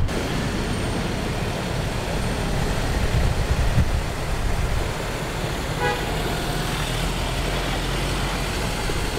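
Light patrol trucks and vans running and moving off, a steady engine and road noise. A single short horn toot sounds about six seconds in.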